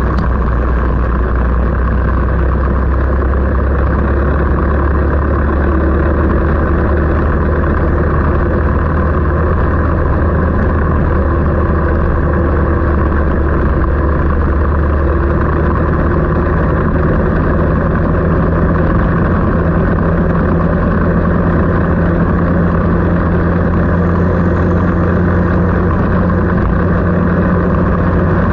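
An engine running steadily at a constant pitch, a loud low hum with no revving up or down.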